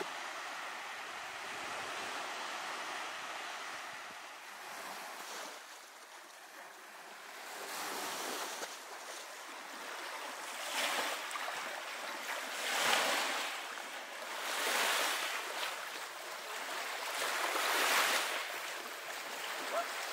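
Small Lake Superior waves washing in against shoreline rocks, with louder surges every couple of seconds in the second half.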